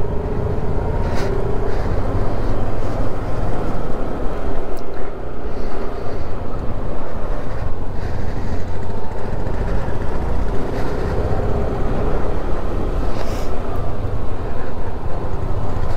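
Suzuki Access 125 scooter's single-cylinder engine running steadily on the move, under loud wind rumble on the microphone.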